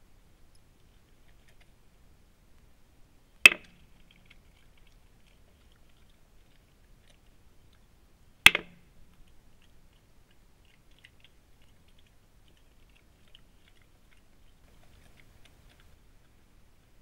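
Two sharp wooden knocks about five seconds apart, from the hinged lid of a small wooden feeder box as a badger pushes its head in and lifts it to feed. Faint crunching of the badger chewing runs in between.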